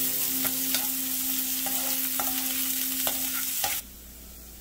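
Chopped onions frying in hot oil in a metal pan, sizzling as they are stirred with a metal slotted spoon that clicks and scrapes against the pan several times. The sizzle cuts off abruptly near the end, leaving a quieter, low steady background.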